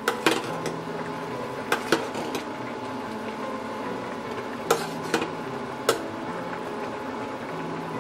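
Pork and burdock root simmering in soy-sauce braising liquid in a stainless steel pot, bubbling steadily. A metal ladle stirs it and clinks against the pot about seven times, mostly in pairs.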